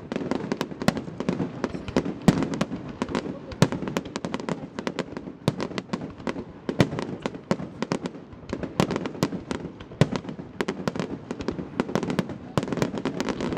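Fireworks display at its grand finale: a dense, irregular barrage of sharp bangs from exploding shells, several a second, over a steady rumbling background.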